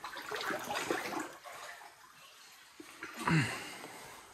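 Floodwater sloshing and splashing around legs as someone wades through a flooded room, in two bouts: one at the start and a shorter one about three seconds in.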